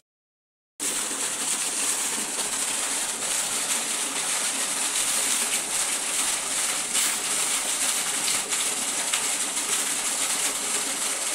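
A stream of water pouring from above into the water of a stone-lined well, splashing steadily, after a brief dropout right at the start.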